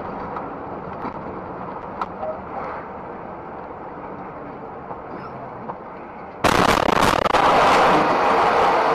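Steady, muffled road and engine noise inside a heavy vehicle's cab. About six seconds in, a sudden loud crash as it hits the cars queued ahead, with sharp cracks at first, then continued loud crunching and scraping.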